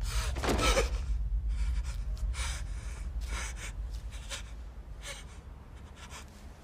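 A person gasping for breath in ragged breaths, about one a second, growing fainter and weaker, over a low rumble.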